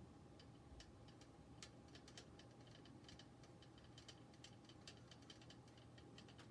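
Faint, irregular small clicks and ticks of screws being handled and driven with a screwdriver to mount an SSD in a drive tray, over a faint steady hum.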